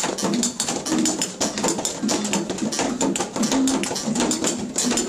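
A group playing homemade shakers and percussion instruments made from plastic bottles, cans and cardboard tubes, shaken and tapped together in a busy, steady rattling rhythm.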